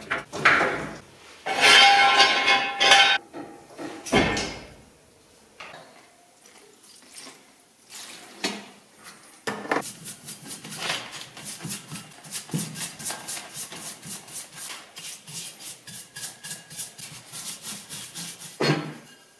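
Knocks and clatter of handled tools and parts, with one heavy thump about four seconds in, then a fast, even clicking, about four clicks a second, for several seconds.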